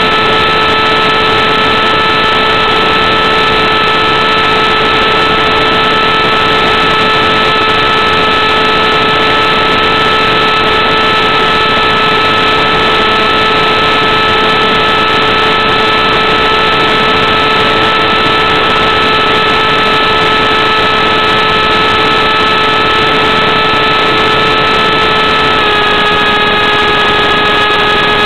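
Electric motor and propeller of a Dynam Hawk Sky RC plane running at steady cruise throttle: a steady hum of a few tones over a hiss, heard through the FPV video link's audio. Near the end the pitch steps down slightly as the throttle is eased back.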